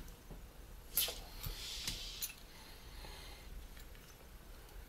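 Small metal hand tools being handled and picked up from a carpeted work mat: a few light clicks and taps, the sharpest about a second in, with a scratchy rustle for a couple of seconds in the middle.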